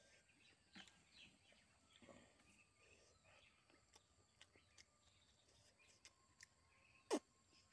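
Near silence with faint eating sounds: soft mouth clicks and smacks while chewing rice and curry eaten by hand, with one sharper click near the end.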